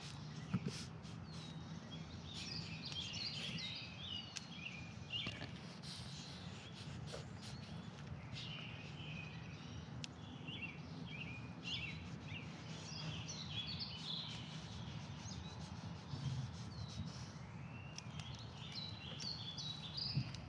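Songbirds chirping and singing on and off throughout, over a steady low hum. Scattered soft clicks and rustles come from goats pulling at and chewing a handful of weeds.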